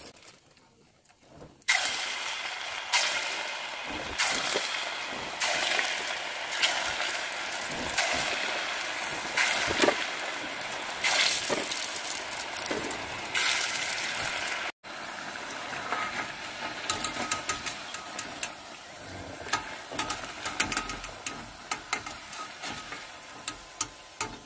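Spinach-batter fritters (palak bonda) deep-frying in hot oil: a sudden loud sizzle starts about two seconds in as the batter goes into the oil, surging again every second or two. Later it settles into a steady crackling fry with many sharp clicks near the end.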